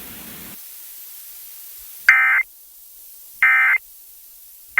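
Emergency Alert System end-of-message data tones: short, loud buzzy digital bursts about 1.3 seconds apart, two whole and a third starting near the end, signalling that the alert message is over. A brief hiss of noise fades out at the start.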